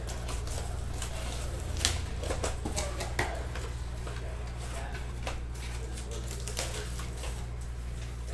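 Trading-card boxes and packs being opened and handled: rustling wrappers and cardboard with scattered small clicks, and a sharper snap about two seconds in and another about three seconds in.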